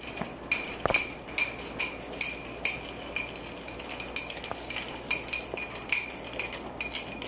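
Metal spoon stirring in a ceramic mug, clinking against the inside about two to three times a second, each clink ringing briefly.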